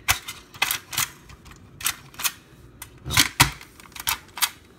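Irregular plastic clicks and snaps from the M.A.S.K. Hurricane toy car as its roof panel is pushed shut and its body pressed down to latch it back into car mode, with a louder, heavier knock-and-rattle a little past three seconds in. A part is not catching at first, so it is pressed several times.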